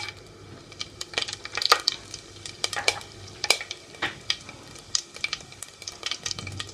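Whole spices (cumin seeds, black peppercorns, cinnamon, cloves, cardamom) sizzling in hot mustard oil, with many irregular sharp crackles and pops as they fry for the tempering.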